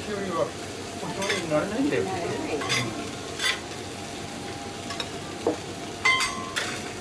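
Beef fillet blocks sizzling on a hot steel teppanyaki griddle while two metal spatulas scrape and clink against the plate as the meat is turned. There are several sharp metal clicks, and one clink rings briefly about six seconds in.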